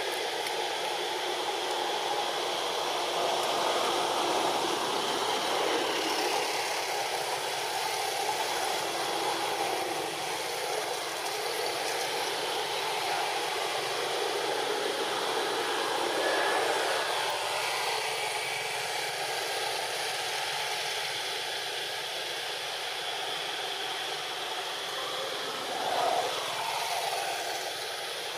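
Steady rushing background noise with no clear pitch or rhythm, and a brief louder sound near the end.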